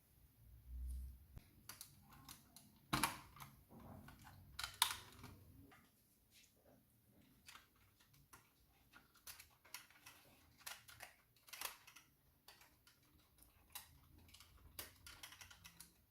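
Irregular light clicks and taps of small hard parts being handled, with a few sharper knocks about three and five seconds in.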